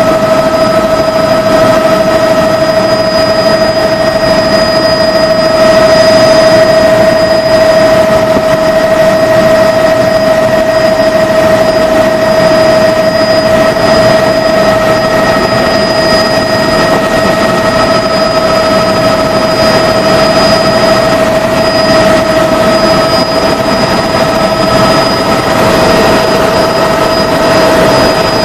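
Helicopter in flight: steady engine and rotor noise with a high whine of fixed tones running through it.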